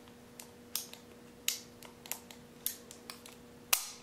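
A series of sharp metallic clicks from a freshly reassembled Wilson Combat 1911 pistol as its safeties and hammer are worked in a function check. The clicks come irregularly, about every half second, and the loudest falls near the end.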